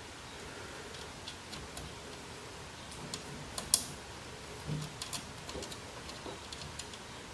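Small machine screws clicking and clinking against metal as they are handled and tried in a computer power supply's mounting holes: scattered light clicks, the sharpest a little past halfway.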